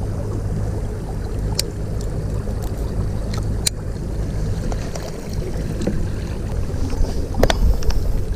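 Steady low rumble on a fishing kayak on the water, with a few sharp clicks and knocks, the loudest near the end.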